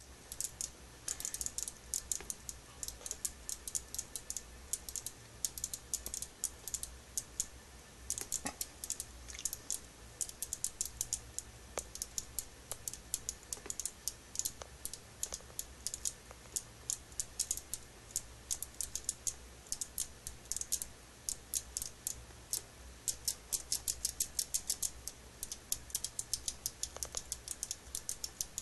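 Rapid, irregular light clicking, several clicks a second, over a low steady hum.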